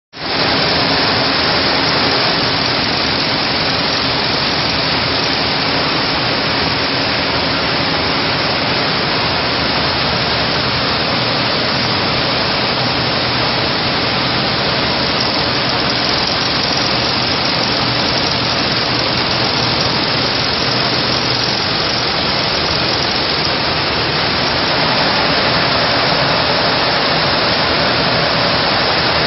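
G-TEK multi-needle chainstitch smocking and shirring machine running steadily while sewing elastic thread into fabric, a continuous even mechanical noise that cuts in suddenly at the start.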